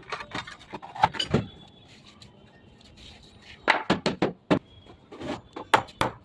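Irregular knocks and taps of tools on wood or metal during column formwork fitting, with a quieter pause in the middle and a run of louder knocks in the second half.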